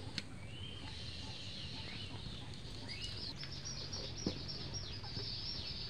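Small birds chirping in quick, high, falling calls, growing busier from about three seconds in, over a steady low background hum; a single sharp knock about four seconds in.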